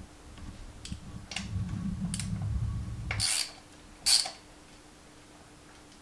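Hand-tool and metal handling noises while the clutch release arm is taken off a Suzuki DR350S: rubbing and a few light clicks, then two sharper scraping clatters about three and four seconds in.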